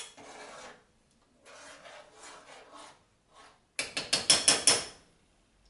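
A spoon scraping and stirring thick hot sauce in a stainless steel saucepan, in two soft stretches. About four seconds in comes a quick run of six or seven sharp metallic taps of the spoon against the pot.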